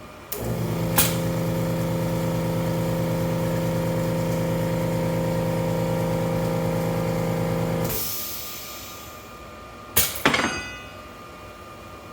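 A motor runs with a steady hum for about seven and a half seconds, with a click about a second in, then winds down. About two seconds later come two sharp clinks in quick succession, ringing briefly like metal tableware striking.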